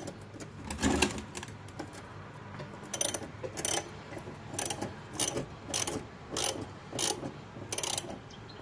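A 14 mm socket ratchet cranking the forcing bolt of a gear puller, its pawl clicking in short strokes about every two-thirds of a second, with a louder clank about a second in.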